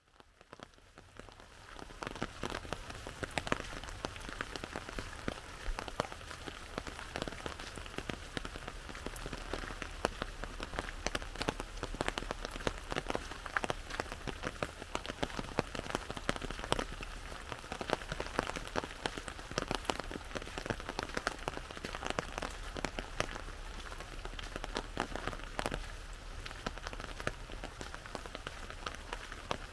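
Rain drumming on an umbrella: a dense, even patter of countless drops over a steady hiss, fading in over the first couple of seconds and then holding steady.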